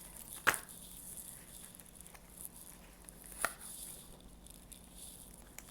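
Tarot cards being handled at a table: two sharp taps about three seconds apart over a faint steady hiss.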